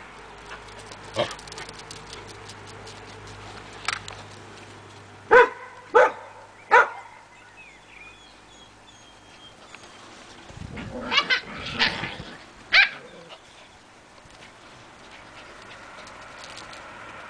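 Samoyed puppies barking in short, sharp yaps, scattered singly at first, then three in quick succession about five to seven seconds in, and a cluster of several more around eleven to thirteen seconds in.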